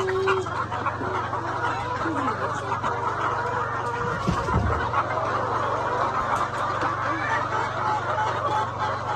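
A large flock of laying hens clucking continuously, many birds calling over one another at once.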